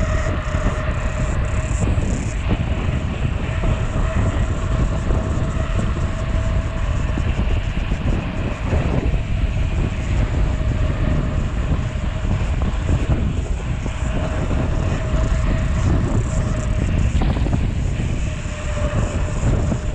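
Wind rushing over a handlebar-mounted camera's microphone on a fast mountain-bike descent, a heavy, buffeting rumble, with the tyres rolling on the asphalt and a faint steady hum.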